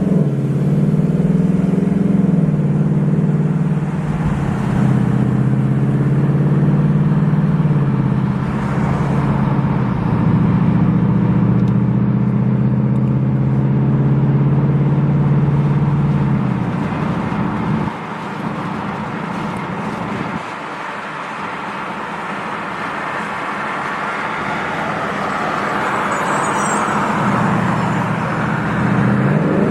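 Ford Mustang GT's Coyote V8 running under way. The engine note holds and shifts as the car accelerates and changes gear, then drops back to quieter road noise about two-thirds of the way through. Near the end it climbs in pitch again as the car accelerates.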